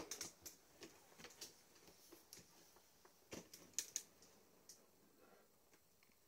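Faint, irregular clicks and light taps, about a dozen scattered through, the sharpest a few seconds in, over quiet room tone.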